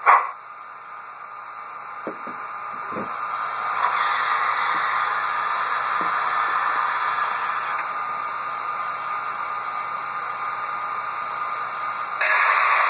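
Steam hiss from the TCS WOW Sound decoder in an HO-scale Bachmann 2-8-0, played through the model locomotive's small speaker. The steady hiss swells over the first few seconds, with a few faint clicks, and grows louder again near the end.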